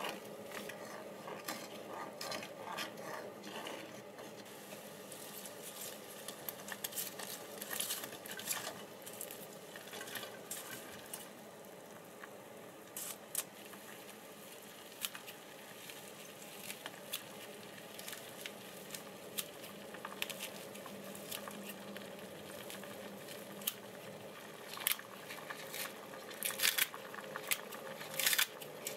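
A wooden spoon stirs a thick sauce in a pot. Then kitchen scissors snip fried tofu and green onion into the pot, with a quick run of sharp snips near the end.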